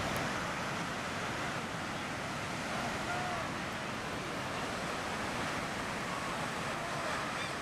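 Ocean surf breaking on the beach, a steady rushing wash.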